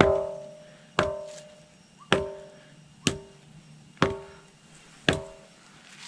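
A 'bell stone' boulder struck with a wooden pole six times, about once a second. Each knock rings with a clear, bell-like tone that fades over about half a second. This is the one spot on the rock that rings; elsewhere it only gives a dull thud.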